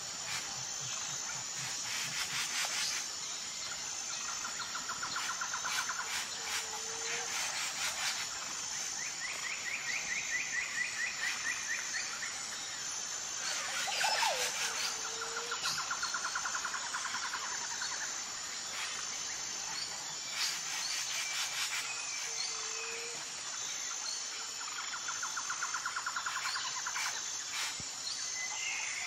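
Nature ambience: steady high-pitched insect chirring, with birds giving short rapid trills every few seconds and a brief lower call that recurs several times.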